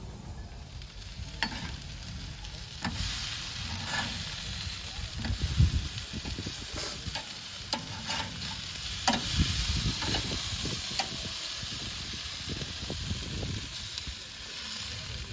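Oxtails, chicken and burgers sizzling on a grill: a steady high sizzle that grows louder about three seconds in, broken by a dozen or so sharp clicks and scrapes.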